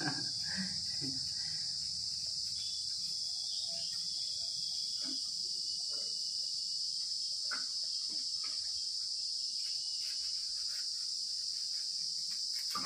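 A steady, high-pitched insect drone, as of crickets or cicadas, with occasional faint knocks and clicks.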